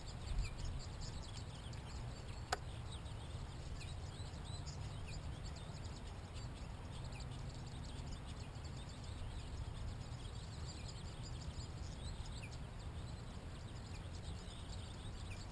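Small birds chirping over a steady low rumble, with one sharp click about two and a half seconds in.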